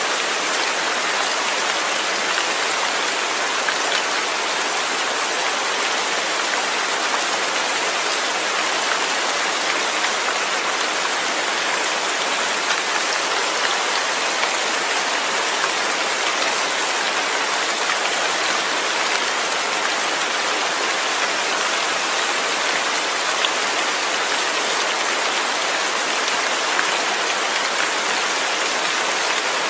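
Steady rain falling, an even hiss with scattered patter of individual drops.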